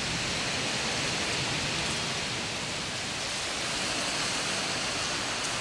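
Heavy rain pouring down in a windstorm, a steady even hiss.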